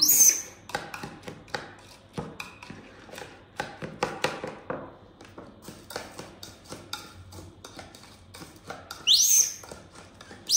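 Baby monkey giving shrill high-pitched squeals, one at the start and a rising one about nine seconds in, with scattered soft clicks and taps in between.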